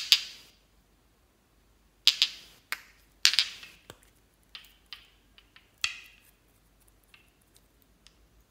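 Hands pressing and poking into fluffy slime in a glass dish: a string of crackling pops and squelches, loudest between about two and four seconds in, then thinning to fainter ones. There is a sharp double click at the very start.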